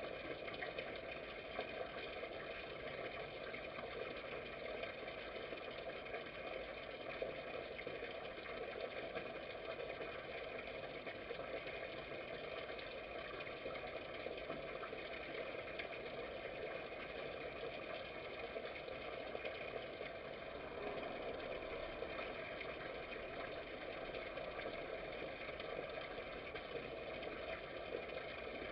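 Steady machine-like hum with several held tones over a constant hiss, unchanging apart from a slight shift about 21 seconds in.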